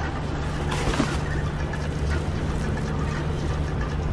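Plastic grocery bags rustling and being handled while they are loaded into a car, over a steady low hum.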